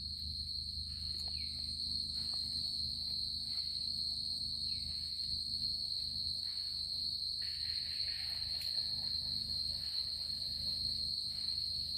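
A steady high-pitched trill of night insects, with a low steady rumble beneath it; a rougher hiss joins in about seven and a half seconds in.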